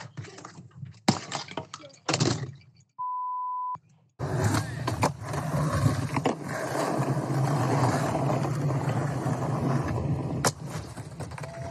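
A short steady beep, then skateboard wheels rolling over pavement with a continuous rumble, broken by a sharp crack about ten seconds in.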